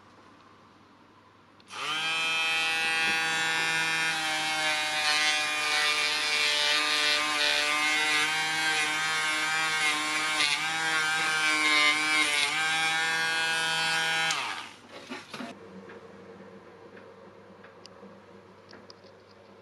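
Small handheld rotary tool running at high speed with an abrasive bit held against a cast aluminium motorcycle wheel hub, a steady whine with a faint grinding hiss. It starts about two seconds in, runs for about twelve seconds, then switches off and winds down.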